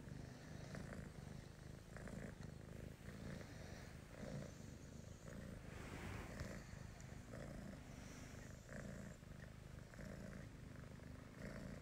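Domestic cat purring, faint and steady.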